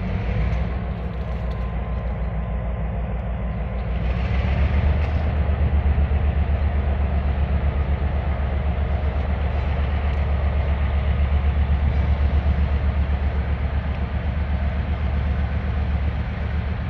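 Diesel locomotive engine running with a low, rhythmic throbbing rumble that grows louder about four seconds in.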